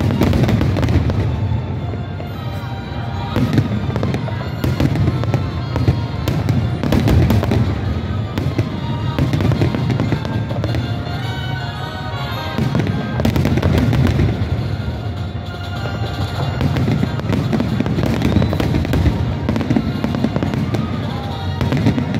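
Fireworks display bursting overhead, a continuous run of booms and sharp bangs in quick succession, with music playing underneath.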